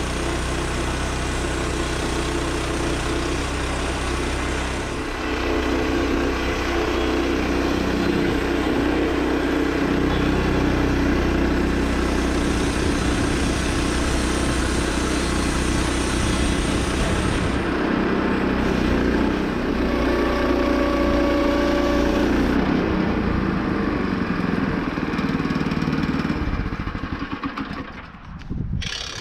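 The 7-horsepower engine of a Woodland Mills 122 band sawmill runs steadily under load as the blade is pushed through a cherry log. The engine drops off near the end.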